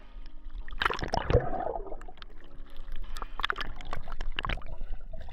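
Water splashing, sloshing and gurgling around an action camera moving between the surface and just under it, as a freediver grapples a speared kingfish. Irregular sharp splashes come throughout.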